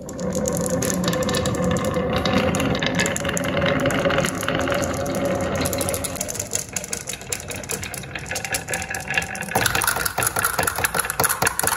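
A line of marbles released all at once, rolling and clattering down a wavy groove cut in a pine wooden track, a dense rattle of many small clicks. About ten seconds in a fresh, sharper clatter begins as marbles tip out of a plastic toy dump truck's bed onto a wooden track.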